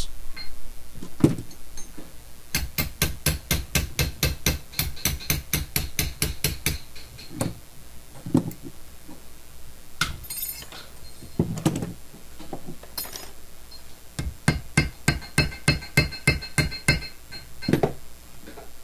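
Copper rivets being peened over by hand with a small hammer on a steel block: a long run of quick light hammer taps, about five a second, then a few single knocks, then a second run of taps with a metallic ring.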